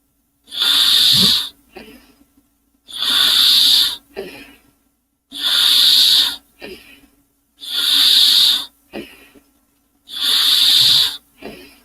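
Steam-engine sound effect: slow, regular hissing puffs, five in all, about one every two and a half seconds. Each is a loud hiss of about a second followed by a short, fainter one.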